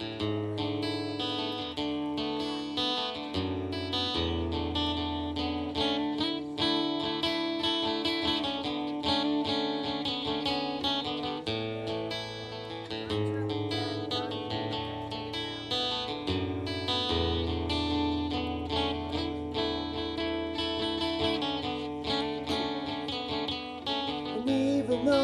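Acoustic guitar strummed and picked in an instrumental song intro, with steady chords changing every few seconds.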